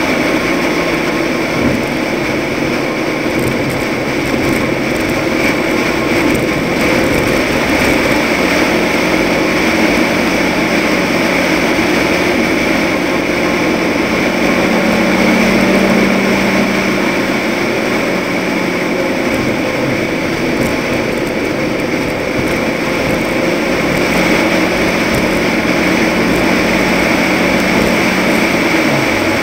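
Toyota race truck driving at speed: a steady engine drone under tyre and wind noise, swelling a little about halfway through.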